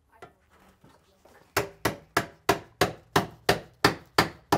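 Hammer striking the nailed-in bathroom exhaust fan at the ceiling joist to knock it free. About ten sharp, evenly spaced blows, roughly three a second, begin about a second and a half in after a few faint knocks.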